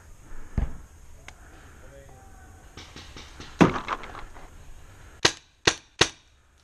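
A Tippmann X7 paintball marker firing three quick shots near the end, each a sharp pop a little under half a second apart. Earlier there is a dull thump, then a loud knock with a short ringing tail.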